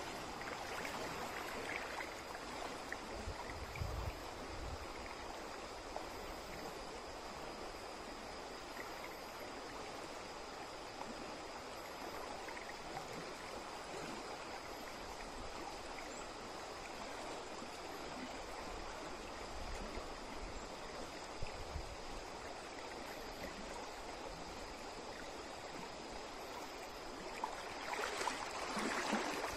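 Shallow stream running steadily over its bed. Near the end, louder splashing as someone wades through it.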